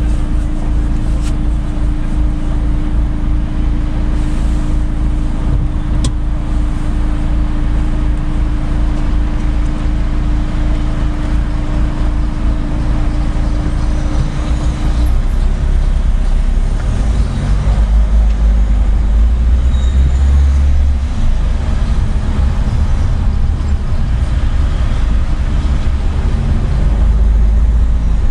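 Car engine and road noise in city traffic. It idles with a steady hum, then about halfway through it pulls away and the low engine and road rumble grows louder.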